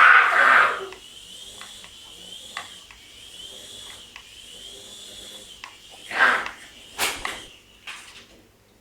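Toy helicopter's small electric rotor motor running with a steady high-pitched whine that wavers slightly and dies away near the end. Loud short rushing noises come at the start and again around six and seven seconds in.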